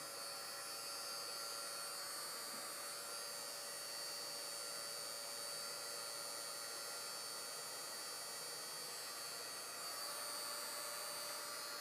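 Ace Hardware heat gun running steadily, its fan blowing with a high-pitched whine.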